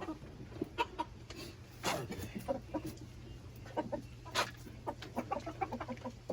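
Chickens clucking in short, scattered calls, with a couple of sharp knocks about two seconds and four and a half seconds in, over a steady low hum.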